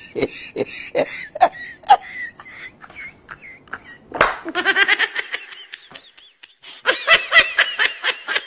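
People laughing in quick repeated bursts. A louder, higher-pitched run of laughter breaks out about four seconds in and again near the end.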